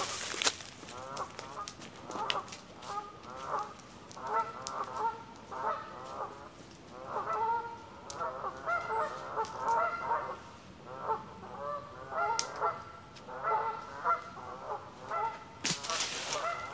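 Geese honking repeatedly, many short calls in quick succession. A brief loud rushing noise comes at the start and another near the end.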